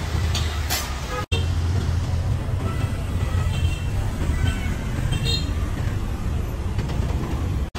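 Busy city street traffic: a steady rumble of cars and motorbikes, with a few short high toots of horns. It starts after a brief break about a second in.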